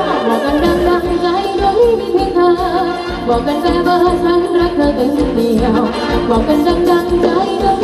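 Live Thai ramwong band music: a singer's voice over sustained instrument tones and a steady drum beat.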